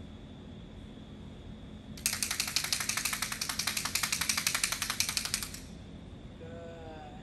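A handheld clapper noisemaker rattled as a sound cue for a horse: a fast, even run of dry clicks. It starts about two seconds in and stops suddenly after about three and a half seconds.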